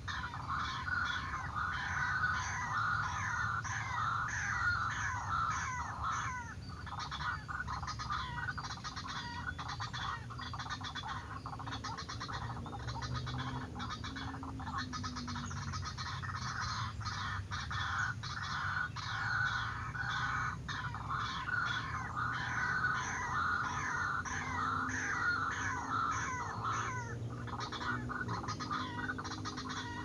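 White-breasted waterhen (ruak-ruak) calling: harsh, croaking notes repeated rapidly and without a break.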